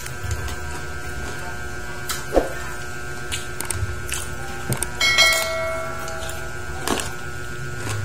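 Crisp deep-fried pork head skin (crispy ulo) being torn by hand and chewed, giving a series of sharp crackles and crunches. About five seconds in comes a louder clink that rings briefly.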